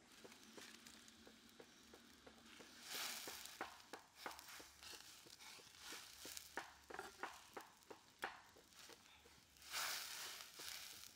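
A slab of pork sizzling and frying in a hot wok over a wood fire, with sharp crackles and pops throughout. The sizzle swells about three seconds in and again near the end, as a metal spatula works the meat in the wok.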